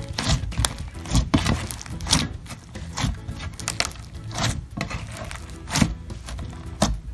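Borax-activated glitter-glue slime being squeezed and kneaded by hand, giving irregular squishes and clicks about twice a second, with music underneath.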